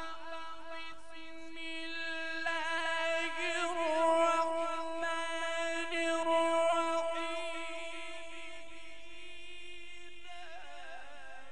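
Male Quran reciter chanting a long, melismatic phrase of tajweed recitation, held on one steady note with quick ornamental turns. It fades after about eight seconds, and a new phrase begins near the end.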